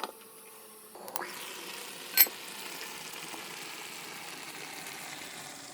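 Food sizzling and simmering in a cooking pot, a steady hiss. A light click comes at the very start, and a sharp ringing clink, the loudest sound, about two seconds in.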